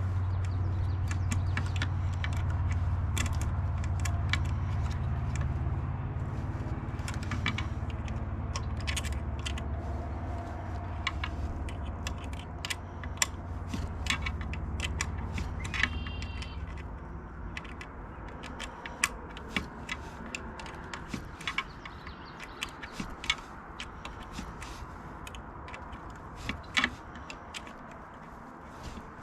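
Scattered metal clinks, taps and scrapes of hand tools and screws as hardware is fitted, over a low rumble that fades out about halfway through.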